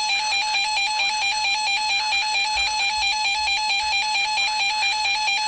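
Emergency alert attention tone for a severe thunderstorm warning: a loud, harsh electronic two-tone warble, held steadily.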